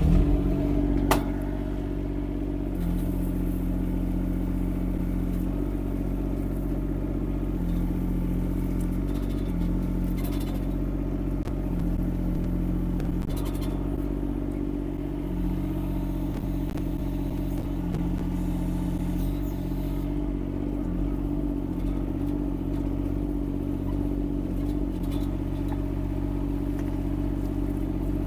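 Yanmar diesel engine of a Kymron XH20D mini excavator coming up suddenly at the start, then running steadily, its hum shifting slightly now and then as the machine is worked.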